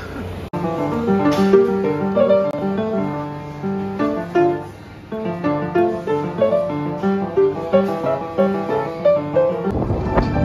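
A grand piano being played: a melody of quick single notes over lower notes. Near the end it cuts off and gives way to outdoor background noise.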